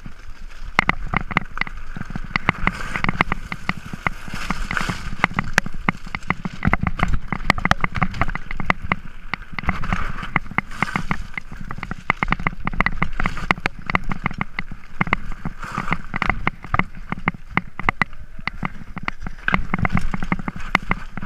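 Mountain bike riding over rocky, loose-stone singletrack: a dense, irregular rattle of clicks and knocks from the tyres on stones and the bike shaking, over a steady low rumble.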